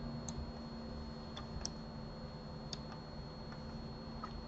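A handful of faint, sparse clicks from a computer mouse and keyboard, spaced irregularly, over a low steady electrical hum.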